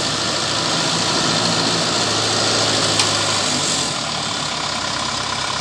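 A small tracked crawler carrier's engine running steadily as the machine crawls along on its tracks, with a sharp click about three seconds in and the engine note easing off a little near four seconds.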